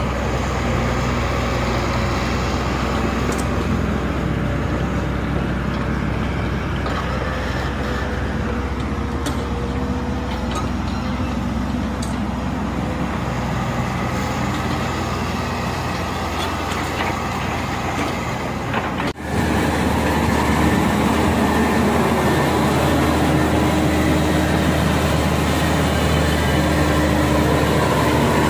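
Diesel engines of tracked hydraulic excavators at work, a steady engine drone with a faint whine in it. About two-thirds of the way through the sound switches abruptly to a slightly louder, steadier drone from a Caterpillar excavator's engine.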